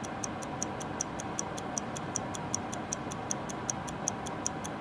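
Mechanical oven timer ticking steadily, about five light ticks a second, over the oven's steady hum while the pizza bakes.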